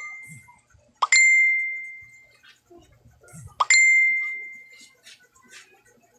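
A bell-like ding rings out twice, about two and a half seconds apart, each a clear high ring that fades over about a second and a half.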